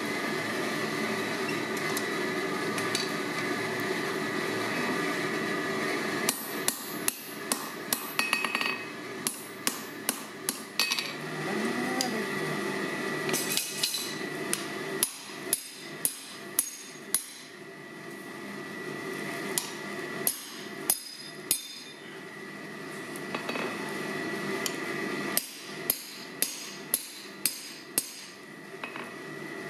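Hand hammer striking a handled slot punch driven into a red-hot steel bar on the anvil, punching a mortise slot. The blows come in several runs of sharp metal strikes, about two or three a second, with pauses between, over a steady hum.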